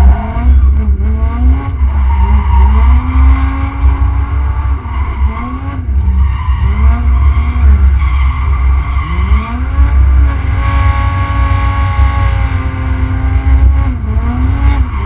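Turbocharged Mercedes OM606 inline-six diesel heard from inside the cabin, revving up and down over and over as the car is drifted, with a heavy low rumble and tyre noise underneath.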